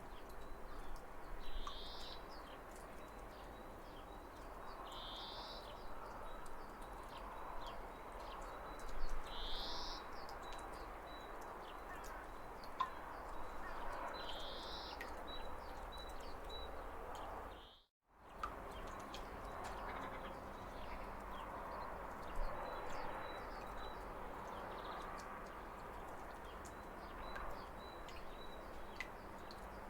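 Steady rush of falling water with birds calling over it: four short, clear chirps in the first half, then scattered faint chirps. The sound cuts out completely for a moment about eighteen seconds in, then resumes.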